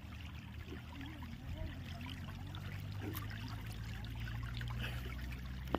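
Water pouring and trickling steadily into a fish pond, over a steady low hum.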